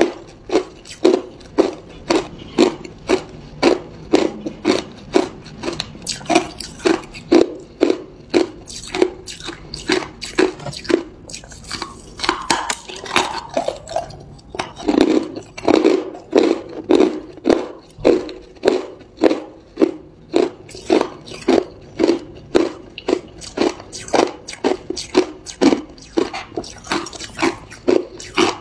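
Hard ice being chewed: a steady run of sharp crunches as the ice is bitten and ground between the teeth, about two crunches a second.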